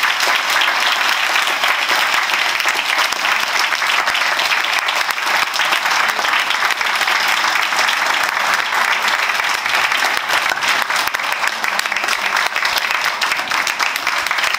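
A roomful of people applauding, a dense, steady clapping that keeps up without a break.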